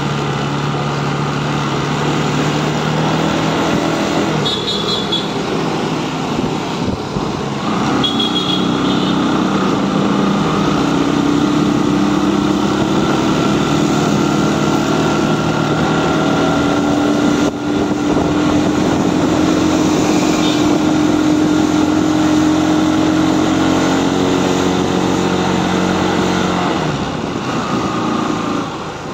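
Motorbike engine running under way in traffic, with road and wind noise. The engine note rises about a third of the way in, holds steady, and eases off near the end.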